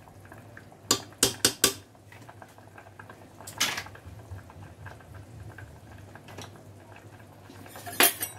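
Chicken and vegetable stew simmering in an open aluminium pressure cooker, with a quick run of four sharp metal clinks against the pot about a second in, another a couple of seconds later, and one more near the end.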